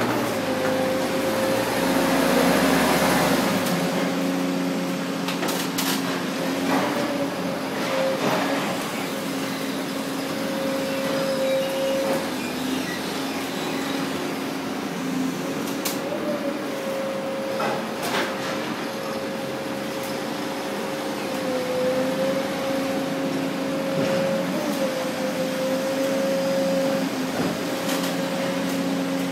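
Hay-loading machinery and a forklift running steadily, with a steady whine that wavers a little in pitch over a lower hum. A louder, rougher stretch comes in the first few seconds, and sharp knocks and clatters come now and then.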